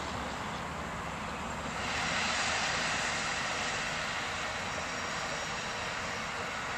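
Twin Suzuki outboard motors on an aluminium cabin boat running steadily as it passes at cruising speed. A louder hiss of rushing water and wash comes in about two seconds in and fades near the end.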